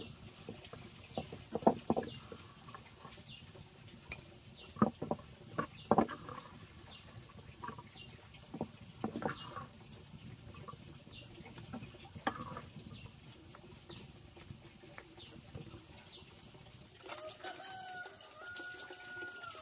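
Wooden spatula knocking and scraping in a metal pan of meat, a handful of sharp clacks over the first dozen seconds, with chickens calling in the background and one long drawn-out call near the end.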